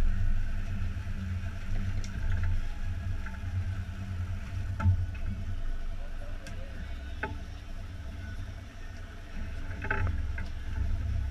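Steady low rumble aboard a Stamas 31 Express sport-fishing boat, with a few short sharp knocks, the clearest about five seconds in and a small cluster near ten seconds.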